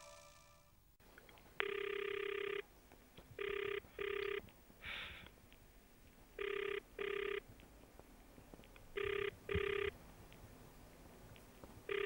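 A telephone ringing with an electronic ring: one longer ring, then double rings of two short rings each, repeating about every three seconds.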